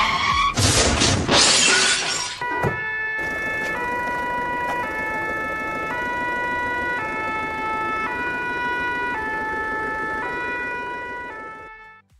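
A loud crash with a noisy breaking sound lasting about two seconds. Then a two-tone emergency siren switches back and forth between a high note and a low note, each held about three-quarters of a second, and fades out near the end.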